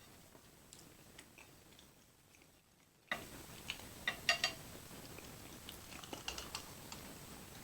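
A person chewing a mouthful of creamy fettuccine alfredo: wet mouth clicks and smacks, faint at first, then louder and busier from about three seconds in, with the loudest cluster of smacks about a second later.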